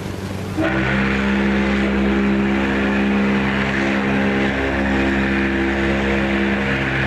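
Ship's horn sounding one long, steady blast that starts abruptly about half a second in and holds at a constant pitch.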